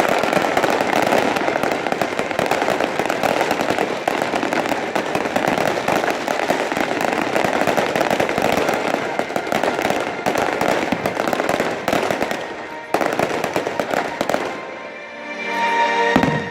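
Fireworks display going off in a dense barrage: continuous rapid crackling and popping from many shells at once, easing off about fourteen seconds in as music comes through.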